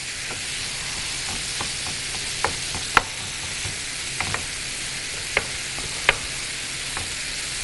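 Minced meat with onion and spices frying in a pan: a steady sizzle, with the stirring spoon scraping and knocking against the pan a few times.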